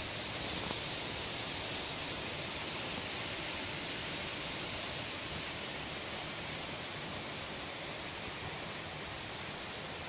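Strong storm wind blowing steadily through trees, a constant rushing hiss of tossing leaves.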